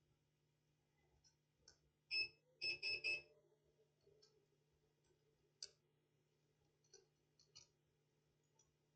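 Faint short beeps from a multimeter's continuity buzzer, four in quick succession about two seconds in, as the probes touch connected points on the circuit board. A few faint probe clicks follow over a low steady hum.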